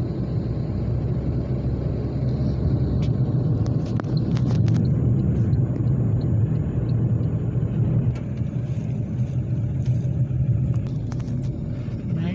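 Car driving at steady speed: a continuous low rumble of engine and road noise, with a few faint clicks about three to five seconds in.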